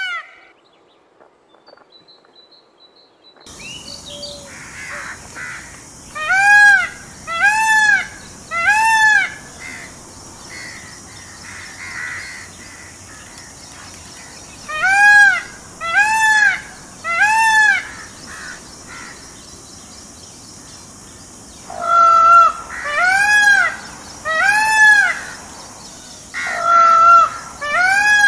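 Indian peafowl (peacock) calling: loud, arching calls in groups of three, repeated several times, after a few quiet seconds at the start.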